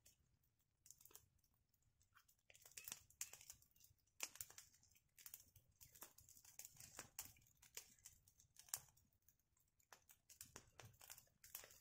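Faint, irregular crackling and rustling of dry leaves and twigs: many small, sharp snaps at an uneven pace.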